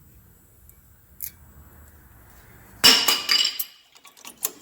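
Metal brake parts clinking: a faint tap about a second in, then a loud metallic clatter about three seconds in that rings and rattles briefly.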